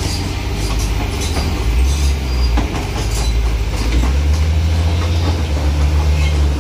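Heavy diesel engines of a Kobelco excavator and an orange box truck running hard under load as the truck is hauled up a steep dirt slope, a deep steady drone with scattered rattles. The drone grows louder about four seconds in.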